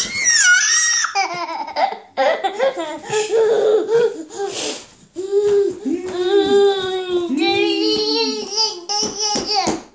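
A baby laughing hard: a high squeal at the start, then a long string of short, pitched laughs.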